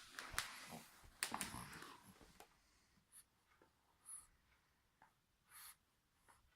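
Quiet scratchy rustling with a few clicks in the first two seconds, then three short, soft hissy breaths from a sleeping French bulldog puppy.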